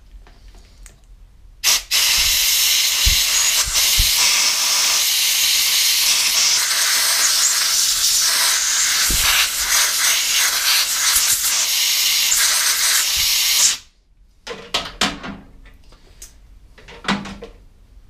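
Compressed-air blow gun hissing steadily as it blasts air into a chainsaw's chain brake and clutch housing, starting about two seconds in and cutting off suddenly after about twelve seconds, followed by a few light clicks of handling. The air is blowing out dirt suspected of making the chain brake bind.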